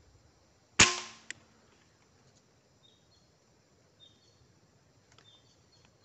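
A single air rifle shot, a sharp crack that dies away over about half a second, followed half a second later by a second short click. Faint high bird chirps follow a few seconds later.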